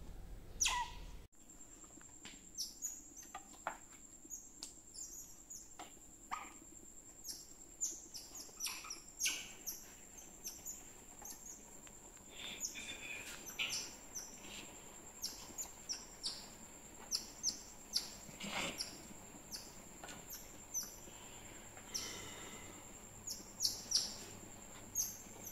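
Otters chirping: a long run of short, high chirps, each falling in pitch, about one or two a second.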